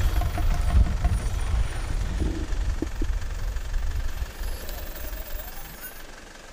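Wind buffeting the camera microphone: a loud, gusty low rumble that fades toward the end.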